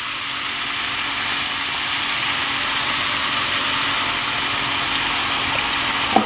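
Drops of besan batter falling through a slotted spoon into hot oil and deep-frying as boondi: a dense, steady sizzle with fine crackles.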